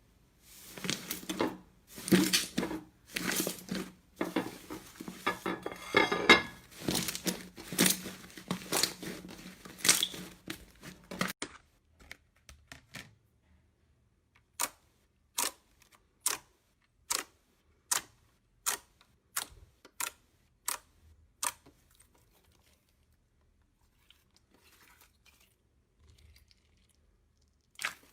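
Slime being handled close to the microphone. For about the first eleven seconds it makes a dense crackling and tearing sound, then after a short pause comes a run of about eleven sharp, evenly spaced clicks, roughly one every two-thirds of a second.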